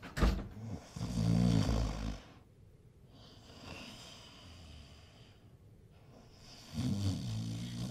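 A person snoring: two long snores, one about a second in and another near the end.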